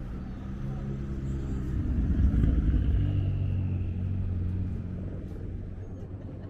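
A motor vehicle driving past, its engine hum and rumble swelling to a peak about two seconds in and then fading away.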